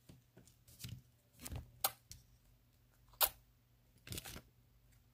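Paper cut-out being handled on a table: a few separate short rustles and crisp taps of paper, the sharpest about two and three seconds in.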